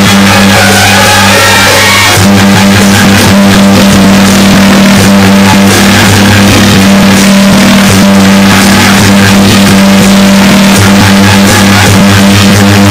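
Loud, distorted outdoor procession music over a steady low drone, changing abruptly about two seconds in and again near the end.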